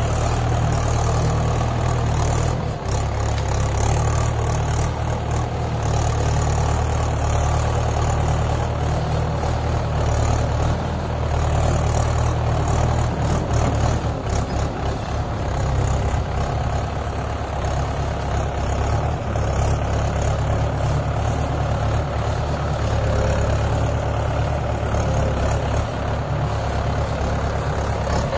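Diesel engine of a Mahindra 575 DI tractor running steadily while it pulls a fully loaded sugarcane trolley over a field.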